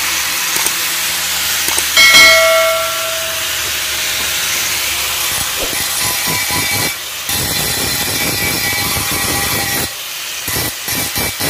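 Angle grinder with an abrasive disc grinding rust off an old steel shovel blade: a steady, harsh hiss. About two seconds in a brief ringing squeal rises above it, the loudest moment, and near the end the grinding breaks into short pulses.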